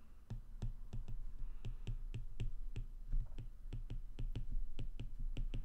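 Stylus tip clicking and tapping on a tablet's glass screen during handwriting: a quick, irregular run of sharp little clicks, several a second.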